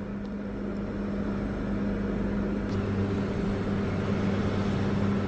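Microwave oven running with a steady electrical hum while heating a toastie; a deeper hum joins about halfway through.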